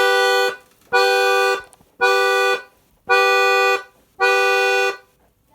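Accordion imitating a truck's car alarm: the same chord blasted five times, about once a second, each blast short with a gap between.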